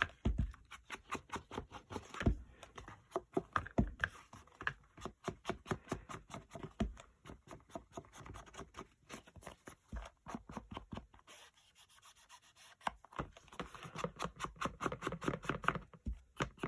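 Paper edges being distressed by scraping: quick, repeated scraping strokes along the card edge, with a brief pause about two-thirds of the way through.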